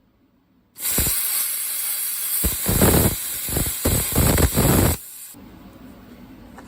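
Plasma cutter cutting a steel plate: a loud hiss that swells several times as it cuts, for about four seconds. It cuts off about five seconds in, leaving a quieter steady hum.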